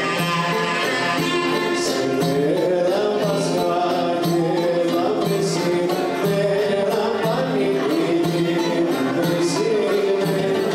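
A live Greek folk band playing dance music: clarinet and violin carry the melody, a man's voice sings, and a tambourine-style frame drum with jingles keeps a steady beat.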